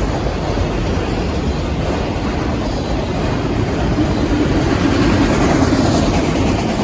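Freight train cars rolling past: a steady rumble of steel wheels on the rails, growing a little louder about four seconds in.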